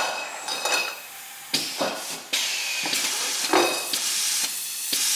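Meheen bottle filler blowing CO2 through its filling heads to purge the bottles, the blowout stage of its auto-clean cycle: a loud hiss of gas that comes in surges, swelling again about one and a half and two and a half seconds in, then holding steady.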